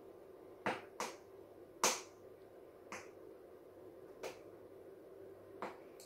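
A handful of sharp plastic clicks, about six spread over five seconds with the loudest near two seconds in, as a plastic Finish dishwasher cleaner bottle is handled and its top seal is picked off. A faint steady hum runs underneath.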